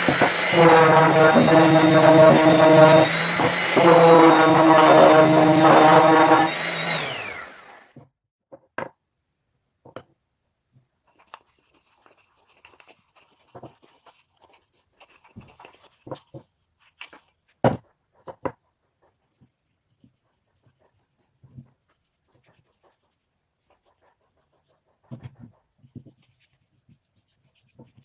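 An electric power tool runs steadily, then is switched off about seven seconds in and winds down. After that there are only scattered light knocks and taps.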